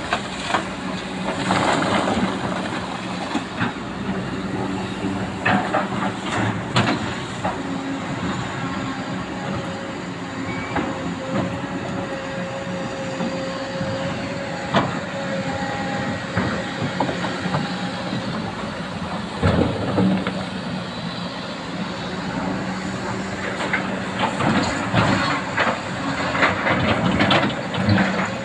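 Excavator's diesel engine running steadily, with a thin whine in the middle and repeated metallic clanks and knocks from the machine at work, busiest about twenty seconds in and near the end.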